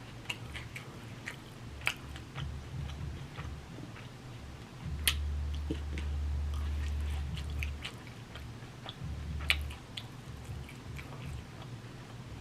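Close-up chewing and biting of a steak, chicken, rice and bean bowl: wet mouth clicks and smacks scattered throughout, with a low rumble twice, the longer one from about five to eight seconds in.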